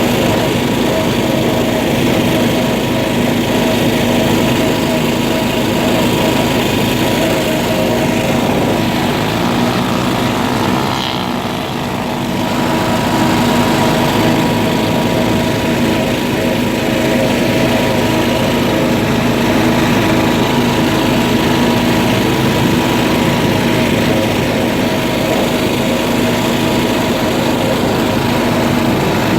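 A small engine of an off-road vehicle running steadily under way, with its level easing briefly about eleven seconds in before picking back up.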